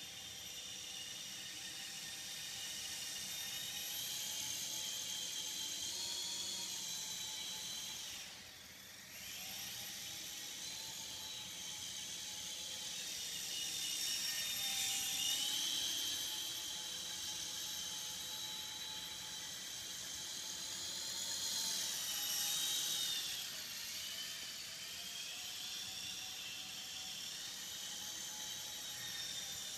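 Small electric RC model airplane with coaxial counter-rotating propellers, its motors and props whining steadily. The pitch rises and falls with the throttle, dropping away briefly about eight seconds in and climbing higher twice later.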